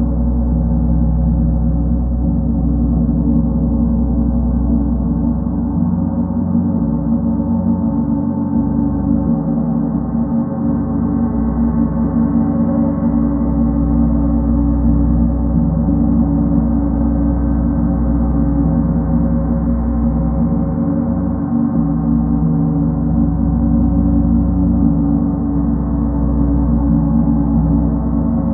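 Large gong played in a continuous roll with two soft felt mallets, giving a steady, loud wash of many overlapping low tones with no separate strikes standing out.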